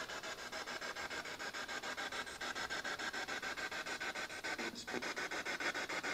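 Ghost-hunting spirit box sweeping through radio frequencies over a small handheld speaker: choppy static stuttering about six times a second, with a steady high tone running through it. Ghost hunters read words into it as spirit voices.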